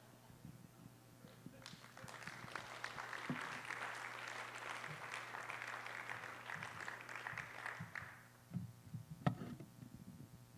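Audience applauding, starting about two seconds in and dying away near eight seconds, followed by a few soft thumps and knocks.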